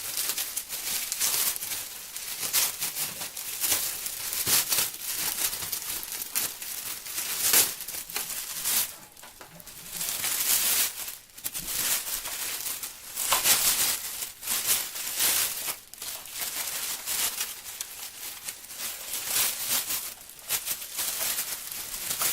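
Packaging crinkling and rustling as it is handled and pulled off, in an irregular run of sharp crackles.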